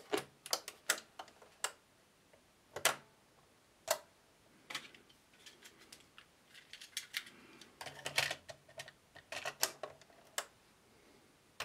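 Short plastic clicks and snaps from a Grundig Stenorette 2600 dictation machine's cassette lid and keys as a Steno-Cassette is loaded and the controls are pressed. The clicks come in irregular clusters, a handful near the start and a denser run in the second half.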